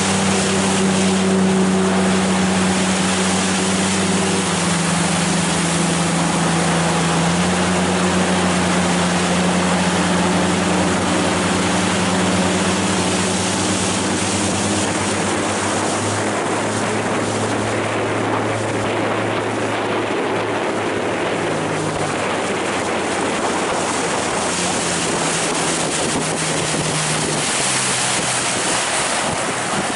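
A small aluminium motorboat's engine runs steadily at speed, its note shifting slightly in pitch a few times. Water rushes and splashes against the hull throughout.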